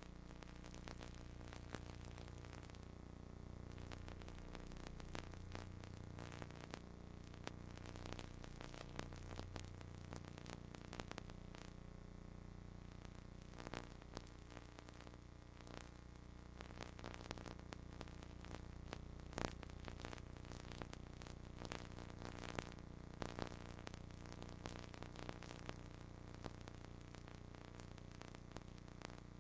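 Faint hiss and low hum with scattered clicks and crackles throughout, the sharpest about two-thirds of the way through: line and tape noise on an idle videotape audio track under colour bars.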